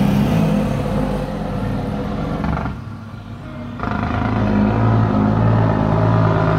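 Mack DM truck's diesel engine brake (jake brake) firing as the truck approaches, a loud, rapid, rattling exhaust note. It cuts out for about a second around the middle and comes back louder.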